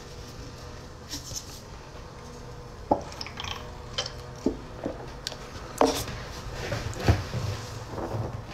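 A person drinking from a cup: a string of short clicks and knocks from handling the cup and swallowing, starting about three seconds in.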